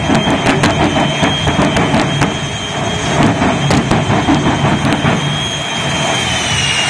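Twin Westinghouse J34 turbojet engines of a jet-powered 1957 Chevy pickup running, a loud steady rush with a high whine that dips slightly near the end. Sharp pops come in quick succession over the first few seconds, with a few more later.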